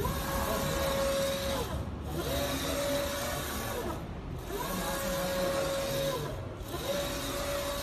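Vanye UV flatbed printer's print carriage moving back and forth, its whine rising, holding and falling with each pass about every two seconds, over a steady hiss.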